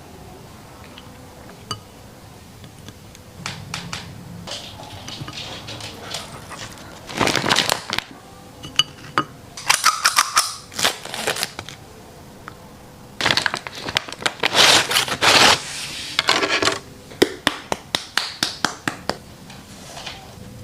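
Food being handled before a dog's meal: a run of short crinkling, rustling and clattering bursts with scattered clicks, busiest from about seven seconds in to about sixteen.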